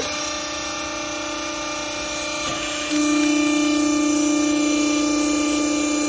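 Hydraulic power unit of a vertical clothes baler switching on and running with a steady, pitched hum as the press plate lifts off the strapped bale. It gets louder about three seconds in.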